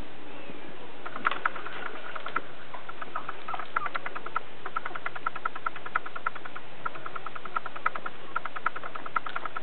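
A litter of young puppies making runs of quick little clicks, several a second, starting about a second in.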